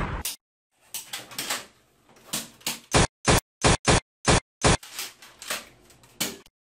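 A quick run of about six short, sharp bangs, each cut off abruptly, about three seconds in, with scattered knocks and rustles before and after.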